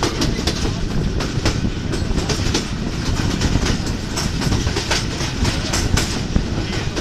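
Moving passenger train heard from an open door or window of its coach: a steady running rumble with frequent irregular clicks and clatter of the wheels on the rails.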